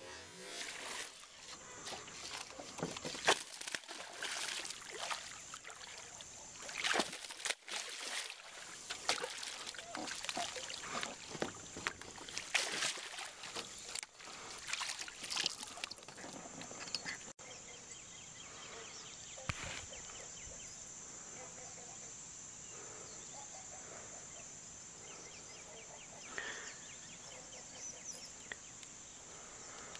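Water sloshing, with knocks and handling noise around a small fishing boat, busiest in the first half. It then settles to a steady high insect chorus with faint quick ticking.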